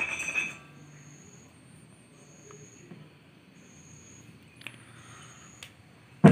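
An insect chirping in a steady rhythm of high-pitched pulses, each lasting under a second and coming about every one and a half seconds. A few soft clicks, then a sharp knock right at the end.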